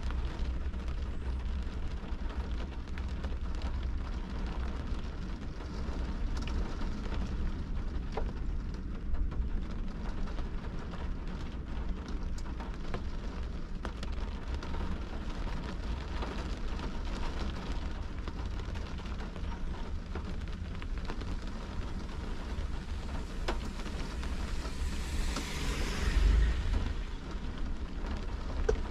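Rain falling on a car's windshield and roof, heard from inside the car: a steady hiss with scattered drop clicks over a constant low rumble. Near the end a vehicle passes close by, swelling louder and fading.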